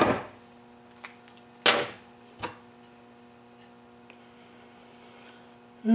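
A few clicks and one sharp clack of hand tools, a metal combination square and a marker, being set down on a wooden workbench, over a faint steady electrical hum.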